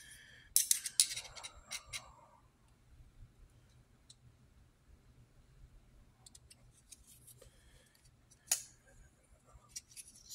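Metal clicks and snicks of two Spyderco folding knives, a Military 2 and a Para 2, as their blades are swung open and closed and the locks engage: a quick run of sharp clicks about half a second in, a single loud click later, and a few lighter ticks near the end.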